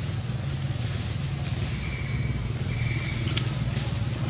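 Steady low drone of a running engine, with two short high whistling tones about two and three seconds in.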